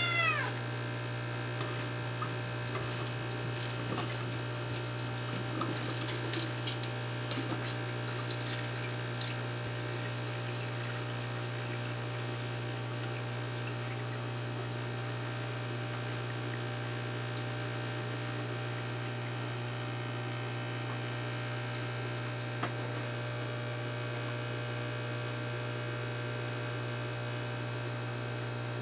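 Steady low electrical hum with many overtones, unchanging throughout, with a few light clicks and handling sounds in the first ten seconds and a single click later on.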